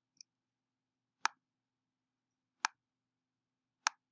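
Three sharp computer mouse clicks, about a second and a half apart, over a faint steady hum.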